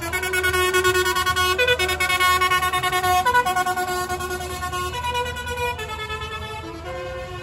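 Tractors passing with a low engine rumble under a loud tune of held notes, changing pitch about once or twice a second, played from one of the passing lit-up vehicles, with sliding tones behind it. It grows a little fainter near the end.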